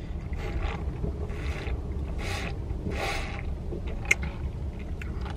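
Sips through a plastic straw in a lidded cup with a hole in its side: four airy slurps about a second apart, over a low steady rumble, with a light click near the end.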